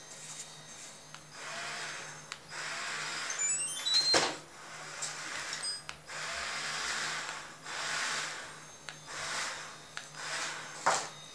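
Samsung robot vacuum playing a short series of rising beeps about four seconds in, followed by a loud knock, with a steady low hum underneath. Soft whooshing swells come and go every second or two, and there is another knock near the end.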